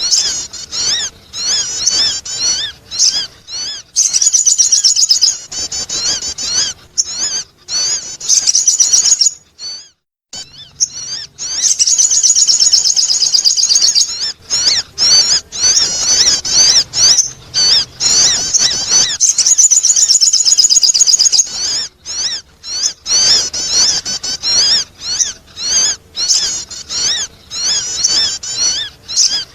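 Sogon bird calls played as a lure recording: long runs of rapid, high-pitched chattering chirps, with a brief break about ten seconds in.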